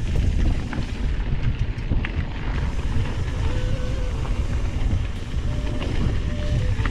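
Wind buffeting the microphone as a Trek Fuel EX 8 full-suspension mountain bike descends a dirt flow trail at speed, with scattered clicks and rattles from the bike over the ground.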